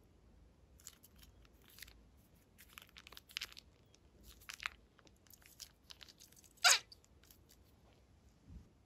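Plastic piping bag crinkling as hands squeeze and wring slime out of it, in a string of irregular short crackles, with one louder crackle about two-thirds of the way through.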